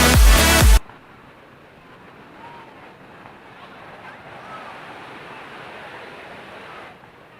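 Electronic dance music with a heavy beat cuts off suddenly within the first second, leaving a faint, steady rushing noise.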